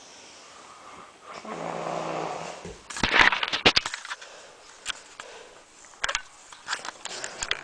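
Snoring: one snore about a second and a half long, starting about a second and a half in. It is followed by a louder cluster of sharp clicks and rustling, and a few scattered clicks near the end.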